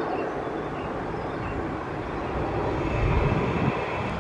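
Jet engines of an Airbus A380 on landing approach passing overhead: a steady low rumble that swells about three seconds in, where a faint high whine joins it.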